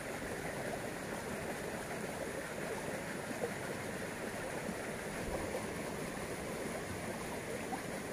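Swift water rushing steadily along a narrow concrete irrigation channel.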